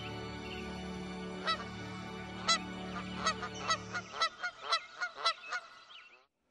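Geese honking: single honks about a second apart, then a quick run of honks, fading out near the end. Under them is a low steady hum that stops about four seconds in.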